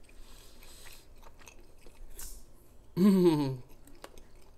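A person chewing a bite of soft, sticky pecan bun, with small wet mouth clicks, then about three seconds in a loud, short hummed "mmm" that falls in pitch.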